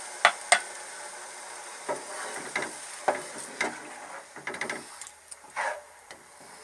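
A utensil clinking and scraping against a cooking pot of daal: two sharp clinks near the start, then a run of shorter knocks and scrapes, over a faint steady hiss.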